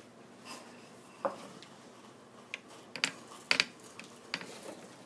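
A handful of light clinks and knocks from a cereal bowl and metal spoon being handled on a table, scattered a second or so apart.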